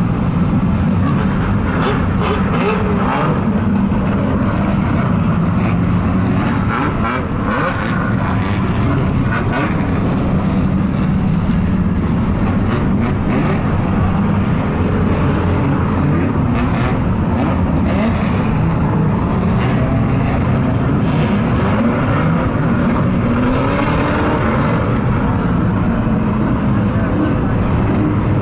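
The engines of a pack of old saloon banger-racing cars running together, a steady mixed drone that rises and falls as individual cars rev. There are a few short knocks in the first ten seconds or so.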